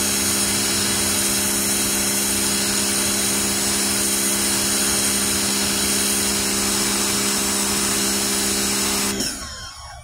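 Electric pressure washer running with a steady hum while its jet hisses against wet concrete; the machine cuts off abruptly about nine seconds in.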